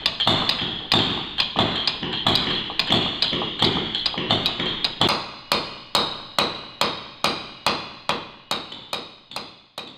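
Caulking mallet striking a caulking iron in a steady rhythm, about two to three sharp ringing taps a second, driving cotton into the seams of a wooden boat hull.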